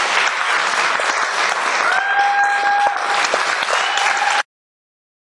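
Audience applauding, with a voice in the crowd calling out in a long held note about two seconds in; the sound cuts off suddenly near the end.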